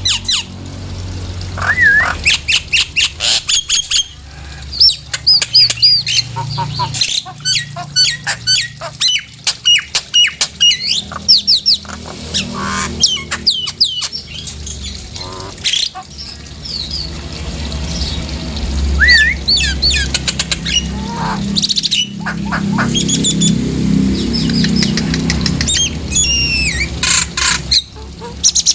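Nias hill myna calling in rapid runs of loud whistles and harsh squawks, many of them quick rising and falling glides, over a low background rumble. It is a lure call, played to set other mynas singing.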